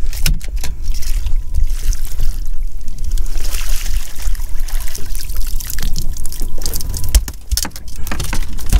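Boat-deck handling noise: knocks and clatter of gear and a landing net against the hull, with water splashing and trickling and wind rumbling on the microphone.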